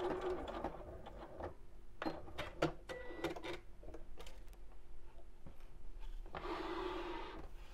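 Sewing machine at rest after finishing a seam: scattered light clicks and knocks of the machine and the work being handled, then a soft rustle of cotton fabric near the end as the sewn strip is pulled out from under the presser foot.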